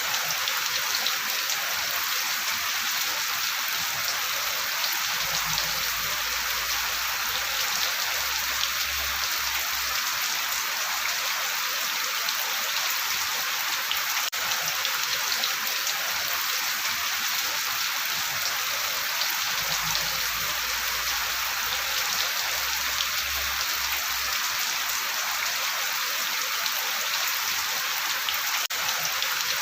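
Steady rain falling, a dense, even patter of raindrops on a surface.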